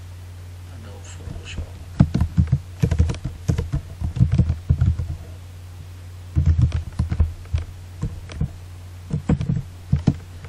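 Typing on a computer keyboard: keys clicking in several short bursts with pauses between, over a steady low hum.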